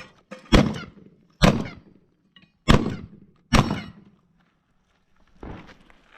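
Shotgun firing four shots in quick succession, roughly a second apart, each with a short echoing tail.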